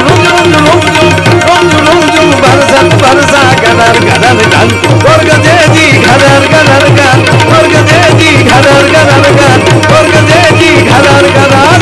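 Live Indian devotional folk music: a harmonium holds steady chords under an ornamented melody that slides up and down, over a quick, even hand-drum beat.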